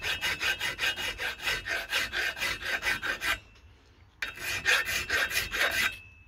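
Hand file scraping back and forth in quick, even strokes, about five a second, against the steel yoke ear of a U-joint, flattening the circlip seat. The filing stops briefly about three seconds in, then resumes.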